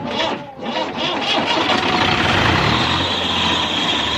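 New Holland Ghazi tractor's diesel engine turning over on the electric starter and catching about a second in, then building up and running steadily.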